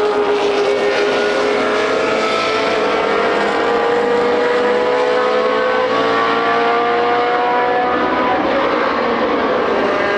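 Historic racing car engine at high revs, its note climbing slowly and steadily in pitch as the car accelerates. Near the end another engine note slides across and takes over.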